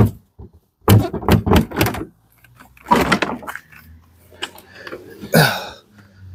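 Plastic front bumper cover of a Mercedes E-Class coupe knocking and clunking as it is pushed and pulled by hand, in a series of sharp knocks with longer rubbing noises between. The bumper is catching on something behind it after the crash.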